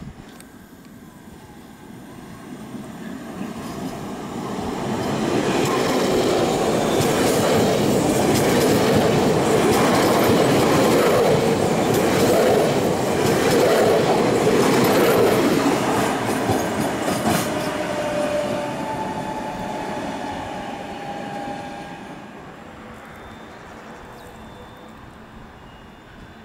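Electric multiple unit passing close by: a rising rumble as it nears, rapid clicking of wheels over rail joints as it goes past, then fading as it moves away. A faint high wheel squeal comes near the end.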